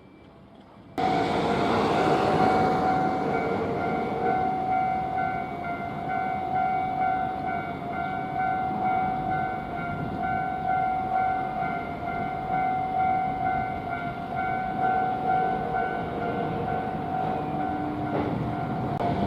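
Japanese level-crossing warning bell ringing in a steady rapid rhythm, over the rumble of an electric commuter or express train passing the crossing. The bell and train noise cut in suddenly about a second in.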